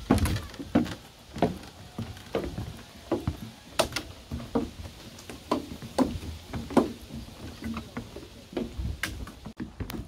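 Footsteps going down wooden deck stairs, a steady run of knocking steps, about one to two a second.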